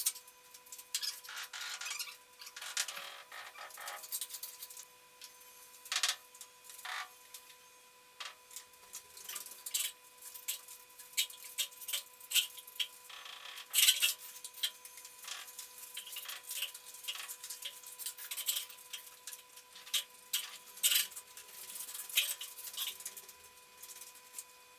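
Bricklaying on a fireplace: a steel trowel clinking, tapping and scraping against bricks and mortar in irregular sharp taps and short scrapes.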